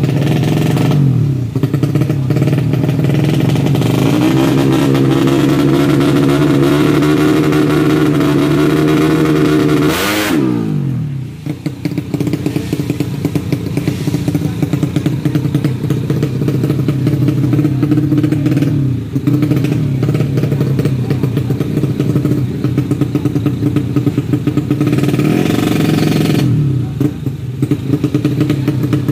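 Tuned four-stroke 130cc underbone drag bike engines revved and held at high, steady revs, with the pitch dropping off and climbing back several times. The sharpest drop comes about ten seconds in.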